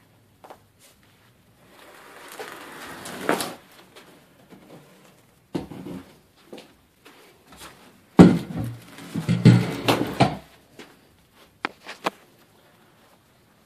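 Scattered knocks and bumps, with a rushing rustle that swells about two to three seconds in; the loudest is a sharp knock about eight seconds in, followed by a cluster of thuds for about two seconds.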